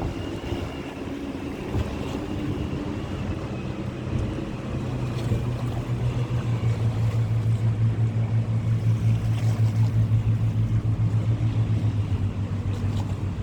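A boat's engine running with a steady low hum that grows louder about four seconds in and stays strong until near the end, pulsing slightly.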